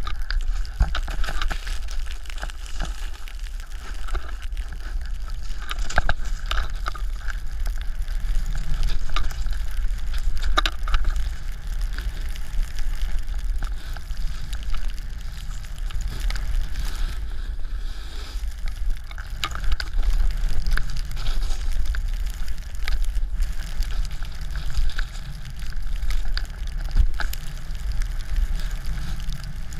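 Snowboard sliding and carving over snow, a steady scraping hiss with occasional sharper clicks, under a low rumble of wind buffeting the GoPro Hero3 microphone.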